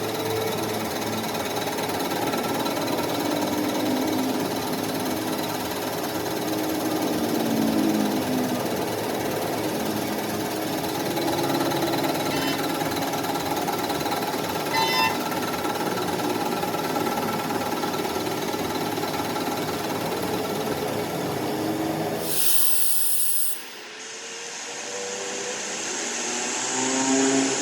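Workshop power-tool noise, loud and steady, during a clutch flywheel repair; about three-quarters of the way through it cuts to a brief hiss, then a quieter whirring machine that grows louder.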